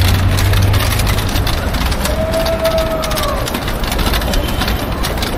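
Busy street traffic: a nearby bus or minibus taxi engine rumbling low, fading out within the first second or two, over steady traffic noise. About two seconds in, a short high tone rises and falls for about a second.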